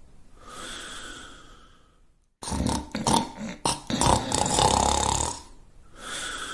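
Loud snoring: a softer whistling breath, then a long loud rattling snore, then another whistling breath near the end.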